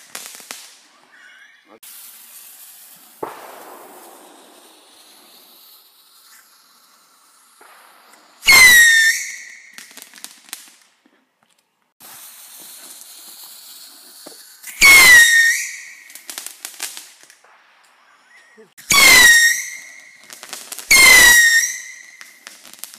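Whistling fireworks going off four times, with gaps of several seconds between the first ones and the last two close together. Each is a shrill whistle that drops quickly in pitch, holds for a moment and cuts off. A soft pop comes about three seconds in, and faint hissing runs between the whistles.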